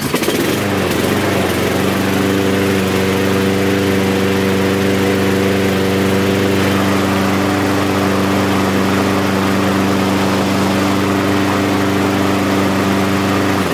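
Mountfield S481 PD lawnmower's 166cc ST170 petrol engine starting straight away and running steadily on its freshly serviced carburettor, then cutting out abruptly at the end.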